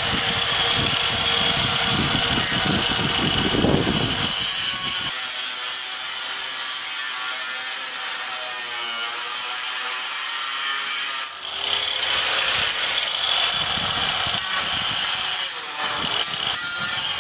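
Angle grinder with an abrasive cutting wheel slicing through a ribbed steel roofing sheet: a steady high-pitched whine over harsh cutting noise. The sound dips briefly about eleven seconds in, then the cut goes on.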